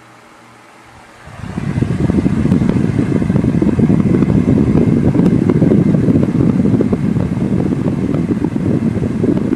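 Holmes Blizzard 8-inch table fan running on low, its air stream buffeting the microphone in a loud, rough, fluttering rumble that starts about a second in and cuts off abruptly near the end.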